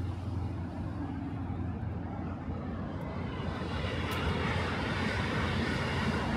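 A passing vehicle's steady low rumble, with a rushing noise that swells and grows brighter from about four seconds in.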